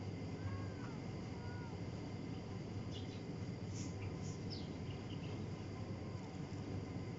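Outdoor ambience: a steady low rumble with a few faint bird chirps, short and high, about three to five seconds in. A few soft, high arched calls sound in the first second or so.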